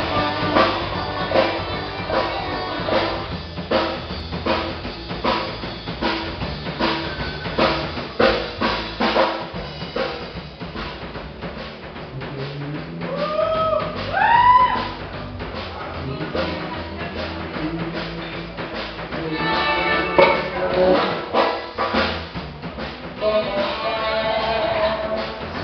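Rock music with a steady drum-kit beat over bass, with a few sliding bent notes about halfway through.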